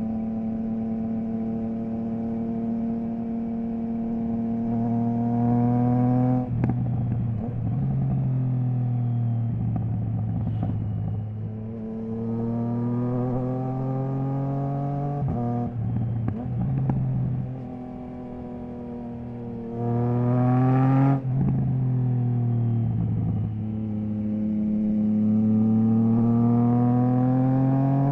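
Triumph Trident 660's inline three-cylinder engine through a Zard stainless full exhaust with the baffle removed, pulling up through the revs four times. Each pull ends in a sudden drop in pitch with a burst of crackles.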